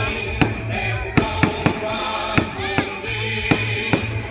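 Aerial firework shells bursting overhead in a run of sharp bangs, about two a second at uneven spacing, with music playing steadily underneath.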